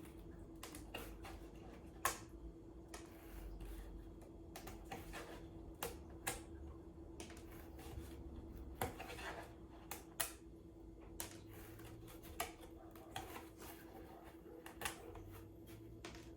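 Cardboard panels and pieces of a cat-scratcher playhouse being handled and pushed together: irregular light taps, clicks and short rustles, about one or two a second, over a faint steady hum.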